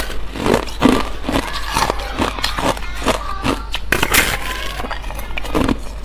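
Thin, hollow shell of clear ice bitten and crunched, a rapid run of sharp crackling snaps as the ice shatters.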